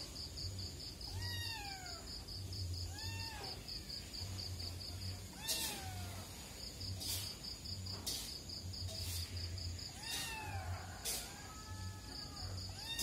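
A cat meowing repeatedly, about six drawn-out falling meows spaced a second or more apart, over an insect's fast, even, high-pitched pulsing trill. A few sharp clicks come in the middle.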